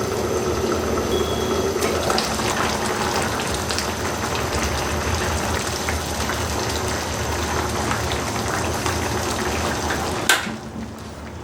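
Food sizzling and bubbling in a cooking pan, a steady crackling hiss; a sharp click about ten seconds in, after which it goes quieter.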